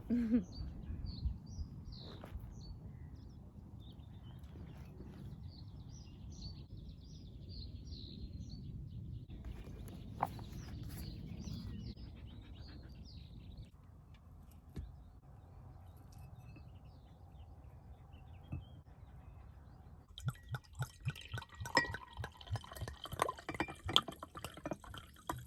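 Small birds chirping over a low outdoor rumble. From about twenty seconds in, a quick irregular run of wet clicks and smacks takes over.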